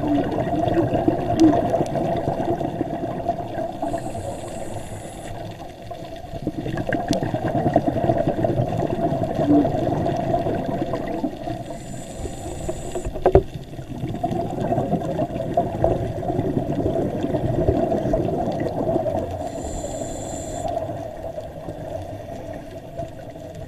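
A scuba diver breathing through a regulator underwater: long gurgling rushes of exhaled bubbles alternate with a brief high hiss of inhalation, three breaths about seven seconds apart. A single sharp knock about halfway through.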